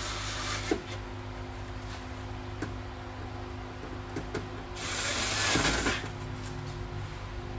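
A cordless driver runs briefly on a door bolt at the start, ending with a click. About five seconds in, the plastic vapor-barrier sheet of the truck door crinkles loudly for about a second as it is handled. A steady low hum runs underneath.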